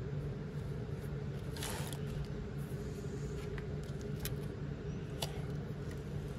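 Steady low hum of a large store's room tone, with a brief scraping rustle about a second and a half in and a few sharp clicks later.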